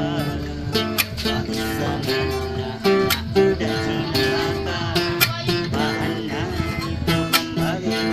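Music with strummed and plucked acoustic guitar.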